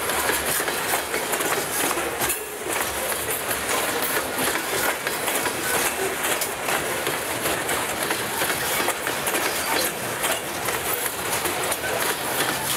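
Loaded covered hopper cars of a freight train rolling past close by: a steady rush and rattle of steel wheels on rail, with many sharp clicks as the wheels cross rail joints.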